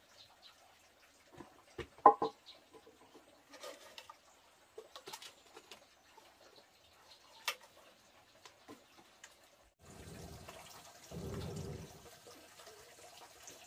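Scattered knocks and clinks of objects being handled, the loudest about two seconds in, then running water for the last few seconds, swelling briefly near the end.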